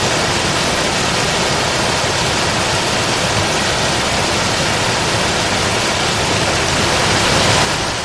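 Waterfall, its falling water making a loud, steady rushing noise.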